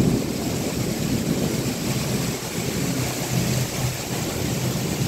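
Rainstorm: heavy rain and strong, gusting wind blowing across the phone's microphone. A strong gust hits right at the start, then the rush of wind and rain runs on steadily.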